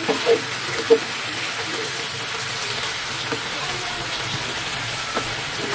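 Marinated beef sizzling in a nonstick grill pan as it is stir-fried with a plastic spatula: a steady frying hiss, with a couple of sharp knocks of the spatula against the pan in the first second.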